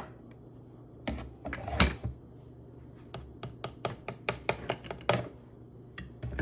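A run of sharp, light taps or clicks on a hard object: a few at first, then a quicker series of about four or five a second through the middle, then stopping.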